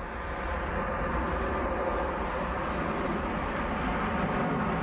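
Jet engines of a large airliner passing low overhead on final approach with its gear down: a steady, dense jet rumble that grows louder over the first second, with a faint whine in it.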